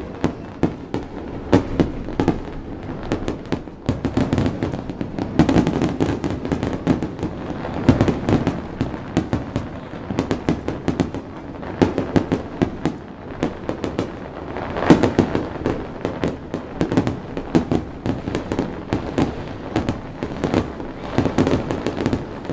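Aerial fireworks finale: a dense barrage of shell bursts, bangs going off several times a second without a pause, with heavier flurries about five, eight and fifteen seconds in.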